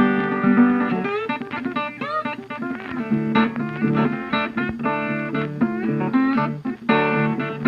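Background music led by plucked guitar, a quick run of notes with some slides between them.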